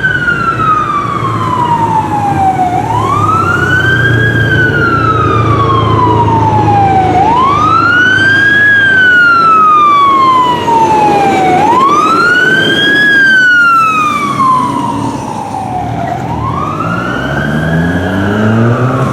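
Fire truck siren wailing. Each cycle is a quick rise and a slower fall, repeating about every four and a half seconds, over the low, steady running of a heavy engine.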